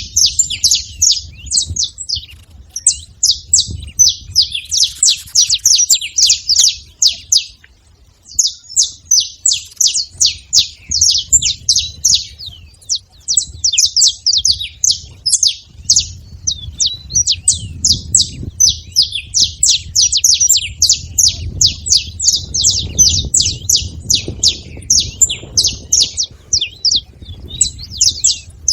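A flock of saffron finches chirping and calling over one another in a rapid, continuous chatter of short, sharp notes, with a brief lull about eight seconds in.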